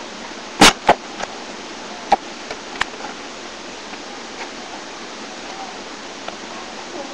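Basketball thumping: two loud sharp thuds close together about half a second in, then a few fainter knocks over the next two seconds, all over a steady hiss.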